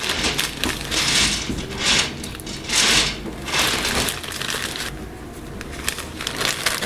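Sugar being tipped from a plastic bag into a plastic mixing bowl of flour: the bag rustles and crinkles and the granules hiss, in four or five short bursts over the first four seconds, then quieter handling.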